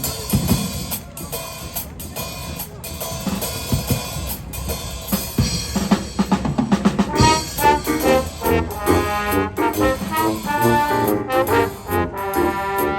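Marching band playing: drums and percussion at first, then the brass section comes in about halfway through with loud, punchy chords over the drums.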